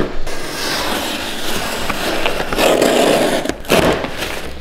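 Knife cutting through a large cardboard box, a continuous scraping rasp that grows louder and rougher a little past halfway, with a few sharp cracks near the end.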